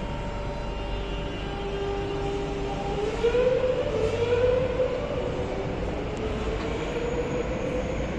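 Madrid Metro electric train pulling out of the station: the whine of its traction motors rises in pitch and grows louder about three seconds in as it gathers speed, over the steady running noise of the train.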